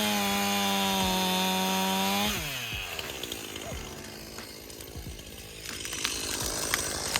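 Stihl two-stroke chainsaw held at full throttle with a steady high note, then let off about two seconds in, its pitch falling away. It then runs lower and rougher, with scattered knocks, before picking up again near the end.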